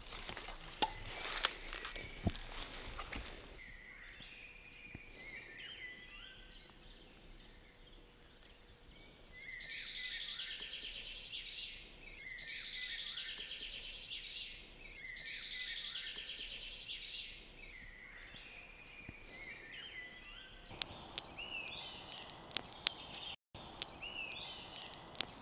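Woodland songbirds singing repeated trilling phrases, about one song every three seconds at their loudest. Clicks and rustling at the start, and a campfire crackling with sharp pops near the end.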